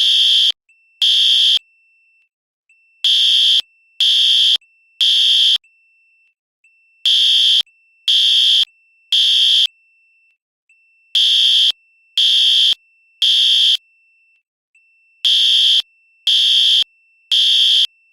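Fire alarm sounding in the temporal-three evacuation pattern: loud, high-pitched beeps about half a second long in groups of three, each group followed by a pause of about a second and a half, repeating every four seconds.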